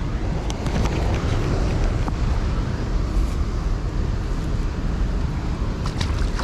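Wind buffeting the microphone, a steady low rumble with a few light knocks.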